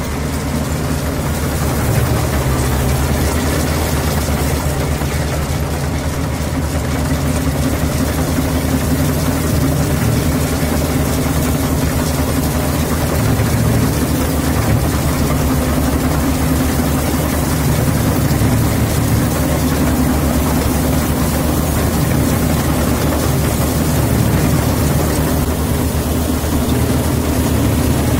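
GAM World Star combine harvester's diesel engine running steadily as it cuts and threshes standing rice: an even low drone with machinery noise over it.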